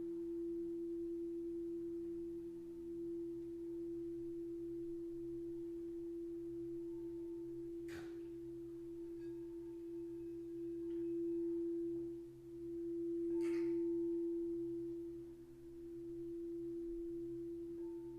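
A quartz crystal singing bowl rings with one steady, pure hum that slowly swells and fades. Two light knocks come partway through, the second followed by a fresh swell of the tone.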